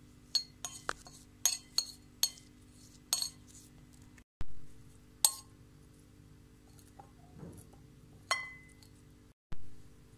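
Knife blade clinking and tapping on a ceramic plate while chopping nettle leaves: a quick run of sharp clicks in the first few seconds, then a few more scattered ones.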